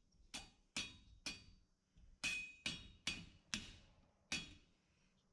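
About eight sharp metal-on-metal taps and clicks, each with a brief ring, from pliers bending and pinching the thin metal wings of a welded scrap-iron dragonfly. There is a short pause between the first three and the last five.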